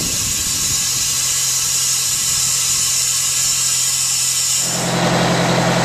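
Loud steady hiss of compressed air venting from a heavy military truck's air system. Near the end a low, steady droning tone with overtones joins the hiss.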